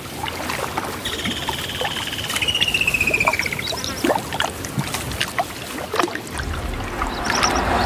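Lion lapping water at the edge of a pool: a scatter of small wet clicks and splashes. A bird calls once in a long, falling trill about a second in, with a few short high chirps near the end.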